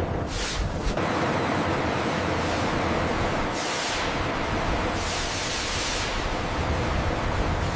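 Steady industrial machinery noise, a dense rumble with a hiss over it. The hiss swells twice, in the middle and again near the end.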